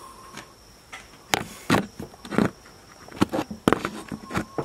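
Irregular knocks and clunks, about six in a few seconds, from a small metal safe being handled on a wooden tabletop.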